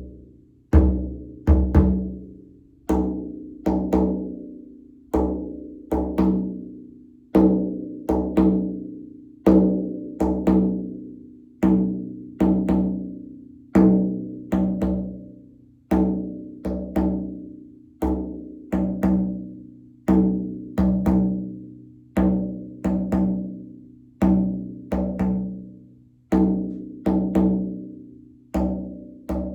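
Frame drum struck in a slow, steady beat of about one stroke a second, each stroke ringing out with a low hum that fades before the next.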